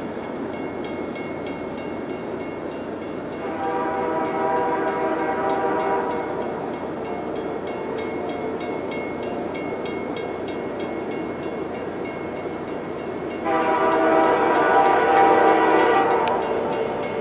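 Nathan Airchime K3L horn on the lead diesel locomotive, CN C40-8M 2432, sounding two long blasts, one about 3.5 s in and one about 13.5 s in, each lasting about two and a half seconds: the crossing warning. Under the blasts is the steady rumble of the approaching freight train, and a grade-crossing bell rings with a fast, even beat.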